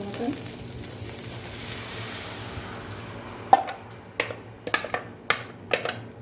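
Onion and garlic sizzling in hot oil in a pan, then, about three and a half seconds in, a loud knock followed by about six quicker clicks and knocks of a spoon against the pan as tomato paste is stirred in.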